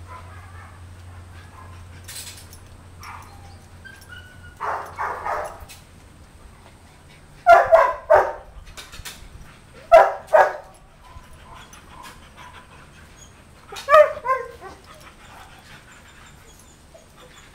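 Dog barking in quick double barks, four times over, with faint high puppy whimpers and yips between them.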